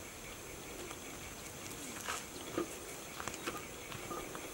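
Outdoor ambience of steady high insect chirring, with scattered soft rustles and crackles of grass and footsteps.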